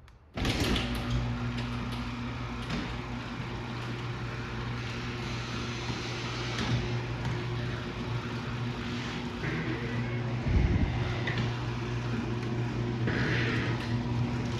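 Older Linear LDO 50 garage door opener running as it opens the door: a steady motor hum with mechanical rattle, starting suddenly about half a second in.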